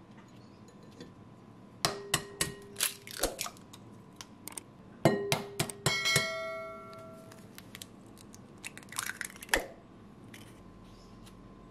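Two eggs cracked one after the other against a glass mixing bowl: clusters of sharp taps and shell cracking, each setting the glass ringing briefly. A few lighter taps follow near the end.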